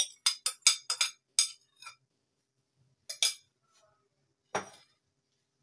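A spoon clinking and scraping against a glass bowl as the last of the yogurt is scraped out, about eight quick clinks in the first two seconds. Then a clink about three seconds in and a duller knock near the end.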